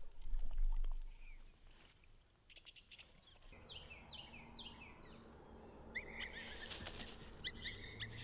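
Insects trilling steadily in a high even tone, with a low rumble of wind or handling on the microphone in the first second. After a cut about three and a half seconds in, a quick series of falling chirps follows, and whistled bird-like notes come near the end.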